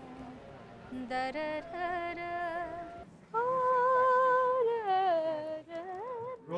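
A woman yawning in tune, the yawn drawn out into sung, hummed notes: a few held, slightly wavering tones that slide downward, the longest held for about two seconds in the middle, ending on a short rising glide.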